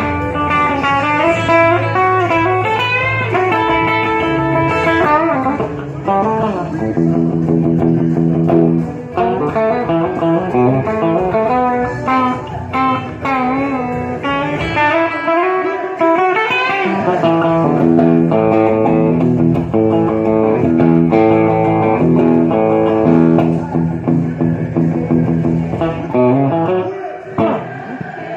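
Rockabilly band music with no singing: an electric guitar plays a lead line of runs and held notes over the band.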